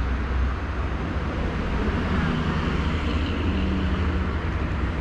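Steady toll-road traffic: a deep rumble with tyre hiss, swelling a little between about two and four seconds in as a vehicle passes.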